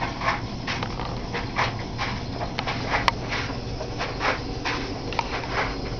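Homemade metal thermoacoustic Stirling engine running: a steady low hum with short, irregular puffs about every half second, and one sharp click about three seconds in.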